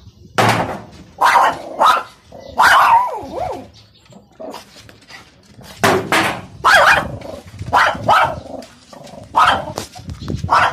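Shih Tzu barking repeatedly, loud and sharp, in two bouts of barks with a pause of about two seconds near the middle.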